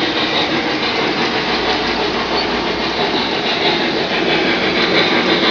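Lionel O-gauge model of a W&LE USRA Mallet steam locomotive running past on three-rail track: a steady mechanical running noise from its motor and wheels, growing slightly louder toward the end as it comes closer.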